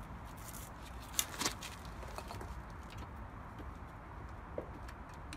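Faint metal clicks and scrapes of a screwdriver levering a brake caliper off its bracket, with two sharper clinks about a second in and a few lighter ticks after.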